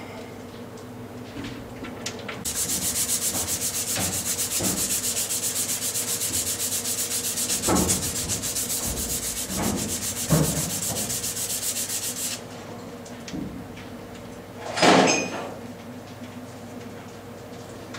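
An abrasive rasping, like sanding, with a fast even pulse, running for about ten seconds before it stops suddenly. A few sharp knocks follow, over a low steady hum.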